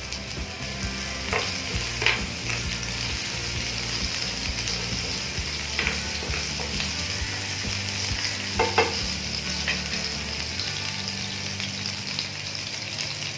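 Onions frying in hot oil on a non-stick tawa: a steady sizzle while they are stirred, with a few sharp clicks of the utensil against the pan. The onions are browning.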